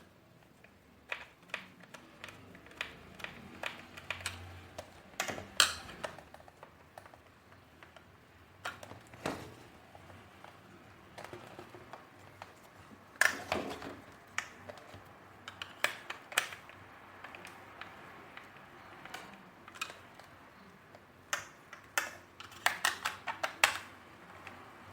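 Irregular clicks, taps and knocks of hard plastic vacuum-cleaner parts being handled and fitted together. Louder clusters come a few seconds in, about halfway and near the end.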